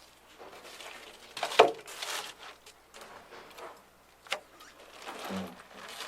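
Hands working with a wiring harness and its connector: rustling, scattered clicks and small knocks, with one sharp knock about a second and a half in and a short dull thump near the end.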